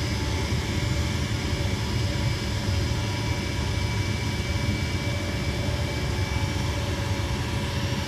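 Gas furnace motor running with a steady hum after the burners have shut off, the flame having stayed lit only about eight seconds: a fault that persists even with a cleaned flame sensor.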